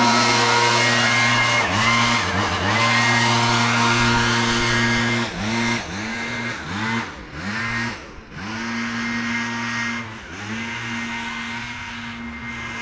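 Petrol engine of tree-cutting equipment running at high revs, its pitch dipping and recovering several times as it bogs under load, more often in the middle seconds.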